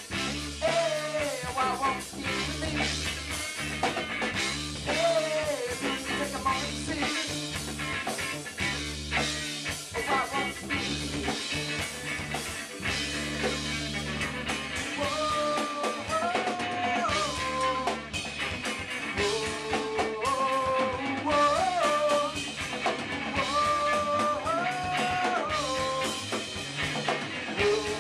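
Live rock band playing: electric guitar, electric bass and drum kit, with a melodic line that bends in pitch over the second half.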